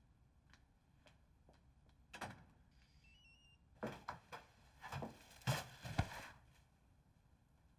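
A few short electronic beeps, then a cluster of knocks and clunks, the loudest two close together, like a door being handled and shut.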